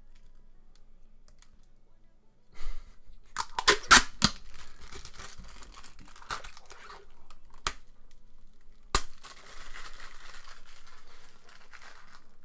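Protective plastic film being peeled off an acrylic keyboard-case plate, crackling and tearing in bursts. There are a few sharp cracks around four, eight and nine seconds in, and it is quiet for the first couple of seconds.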